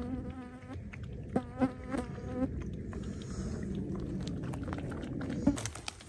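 An insect buzzing in two short passes in the first two and a half seconds, then a fainter, steadier hum that fades near the end.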